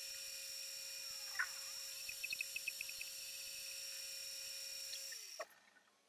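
Homemade lathe's motor and spindle running with a steady electric whine while a carbide-insert tool turns a metal bar, with a short squeak and a run of light ticks from the cut. Near the end the whine sinks in pitch and the sound drops away almost to nothing.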